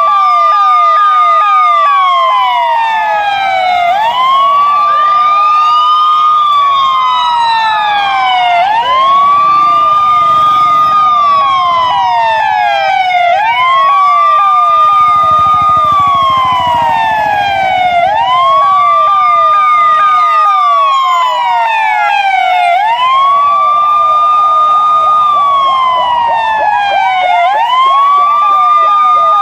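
Police siren wailing, with about six cycles. Each one rises quickly, holds its high pitch briefly, then falls slowly, repeating about every four to five seconds with an echo of the sweeps.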